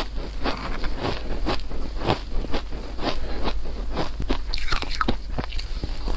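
Close-miked biting and chewing of soft shaved ice dusted in powder: a quick, uneven run of soft crunches, a few a second.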